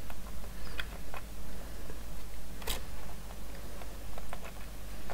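Small, scattered clicks and taps of plastic model parts being handled as a landing-light piece is pushed into a plastic wing frame, with one sharper click about two and a half seconds in, over a steady low hum.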